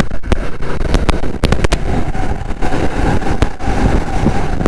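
BMW F900R motorcycle being ridden: its parallel-twin engine running under a steady low rumble of road and wind noise, with a few sharp clicks in the first two seconds.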